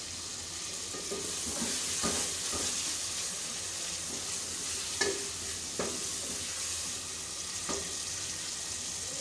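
Sliced onions sizzling as they fry in oil in an aluminium pressure cooker, being stirred with a wooden spatula that knocks against the pot a few times.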